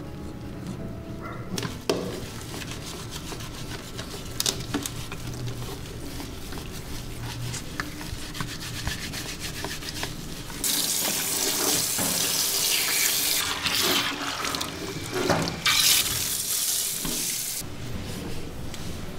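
Water from a shower sprayer hissing as a wet cat is rinsed in a grooming tub, starting about ten seconds in and cutting off shortly before the end.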